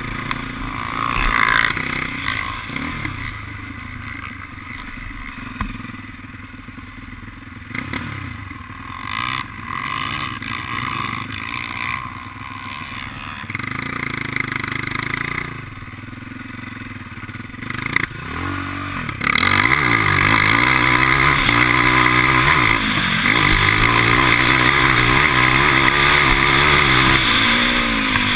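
ATV (quad) engine running hard around a dirt track, heard from a helmet-mounted camera. For about the first two-thirds it is softer and uneven, then about two-thirds in it turns suddenly loud, its pitch rising and falling with the throttle.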